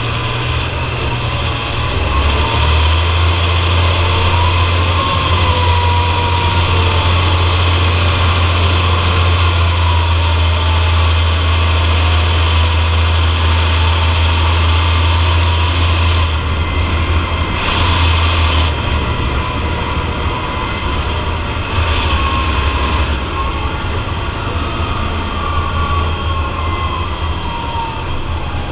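John Deere 7250R tractor's six-cylinder diesel engine running at road speed, heard close to its exhaust stack: a steady low drone with a whine that drifts up and down in pitch.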